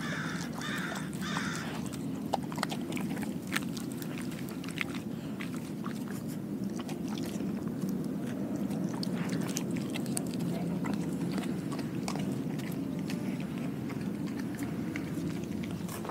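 A dog licking and chewing a piece of raw pork skin on concrete, with scattered small wet clicks and smacks, over a steady low hum.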